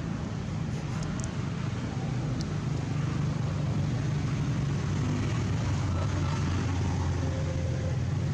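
A steady low engine hum, growing a little louder about three seconds in.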